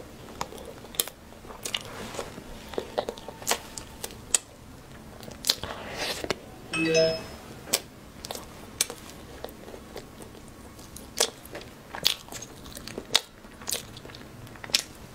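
Close-miked chewing and biting of a soft jujube (red date) cake with walnuts, with sharp wet mouth clicks and smacks scattered throughout. A brief chime sounds about seven seconds in.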